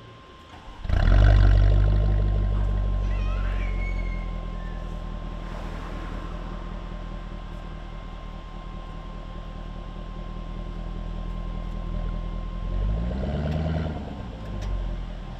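Jaguar F-Type R's supercharged 5.0-litre V8 starting with a loud flare of revs about a second in, then slowly settling to a steady idle. Near the end the revs rise and fall as the car moves off.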